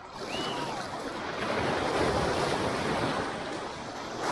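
Small breaking waves and foamy whitewater rushing around a kayak's hull as it rides the shore break into shallow water. The rush swells about a second in and again near the end.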